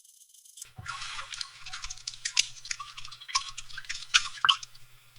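Hot water pipe ticking and creaking as it expands with heat: an irregular run of small clicks and crackles starting about a second in, with a few sharper ticks, over a faint low hum.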